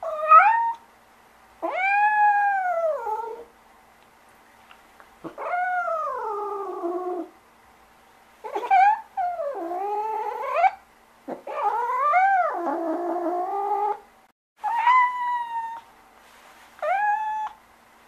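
Domestic cat meowing again and again: about eight drawn-out meows, each rising and then falling in pitch, the longest about two seconds, with short pauses between.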